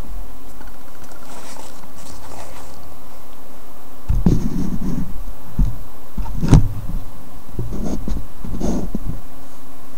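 Rough growling grunts over a steady hiss: a burst of them about four seconds in, one sharper grunt a little later, and another run near the end, from a light-up toy gorilla.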